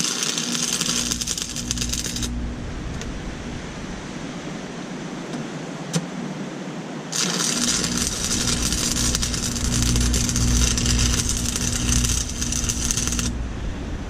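Stick welding steel with 7018 rods on an AC buzz-box welder: the arc crackles and sizzles for about two seconds at the start, then again for about six seconds from about seven seconds in, over a low hum. The second run stops suddenly near the end.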